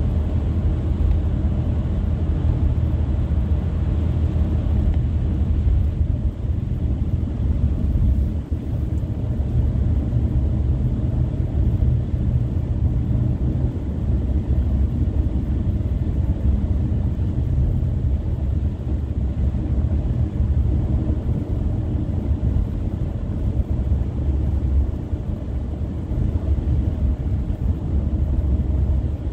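Steady low rumble of a car's tyres and engine, heard from inside the cabin while it drives along a highway.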